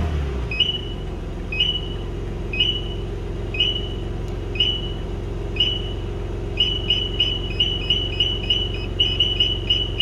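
Car alarm anti-hijack warning beeping over the BMW M3's twin-turbo straight-six idling: short two-note chirps about once a second, speeding up to three or four a second about two-thirds of the way through, counting down to the alarm cutting the engine because the immobiliser tag is absent.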